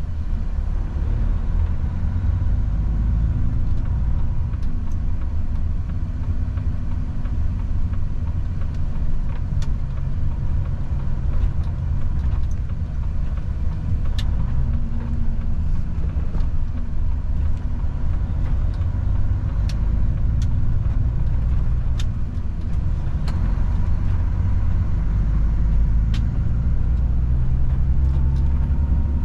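Volvo FH truck driving along the highway: a steady low engine and road rumble, with a few faint sharp clicks scattered through it.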